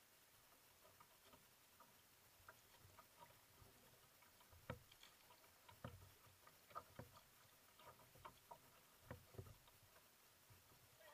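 Faint paddling on a sit-on-top kayak: small irregular splashes and drips as a wooden paddle dips into the water, with light knocks against the hull, becoming stronger and more frequent about four seconds in.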